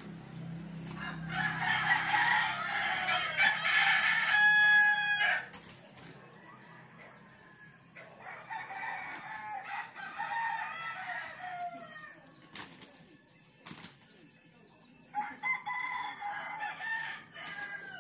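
Roosters crowing in three bouts: a loud crow in the first few seconds, then fainter ones about halfway through and near the end. Short sharp flaps from two gamecocks sparring come in between.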